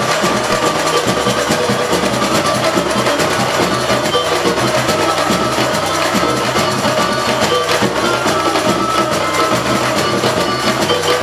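Samba bateria playing a steady, driving samba rhythm, the surdo bass drums pulsing under the quicker clatter of smaller hand percussion.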